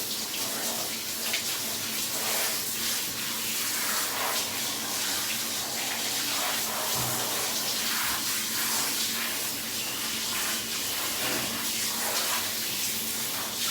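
Water running steadily into a bathtub in a small room.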